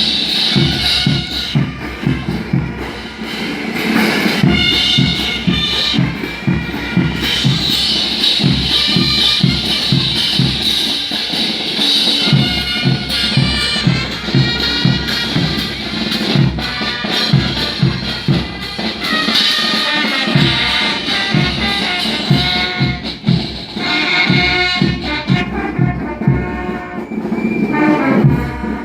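Brass band playing carnival dance music: trumpets and trombones carrying the tune over a steady bass-drum and percussion beat.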